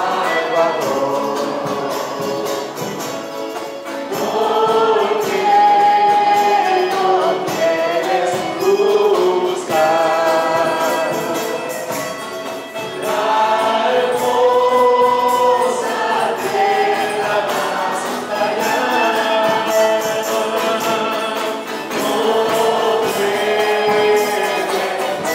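Gospel worship song sung by a group of voices with instrumental backing, in sung phrases of a few seconds each with long held notes.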